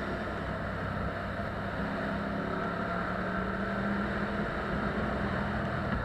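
Ducati Diavel's L-twin engine running steadily under way, heard from a helmet-mounted camera with a noisy rush of road and air behind it.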